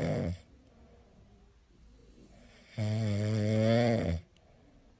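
Sleeping French bulldog snoring: a low, steady snore that ends about half a second in, then a second one about a second and a half long, starting about three seconds in.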